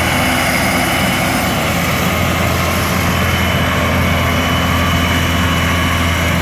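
John Deere tractor and New Holland mower-conditioner running steadily while cutting tall grass for hay: a loud, even mechanical drone that does not change.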